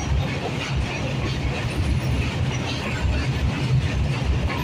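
Freight train's box wagons rolling past close by: a steady, heavy low rumble of steel wheels on the rails.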